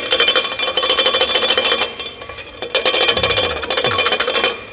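Rear shock absorber of a Toyota SW4 shaken by hand, its broken cover rattling in rapid metallic clinks, in two bouts with a short pause about two seconds in. The cover has broken loose at its top mount, and this rattle is the rear-suspension noise the owner had been hearing.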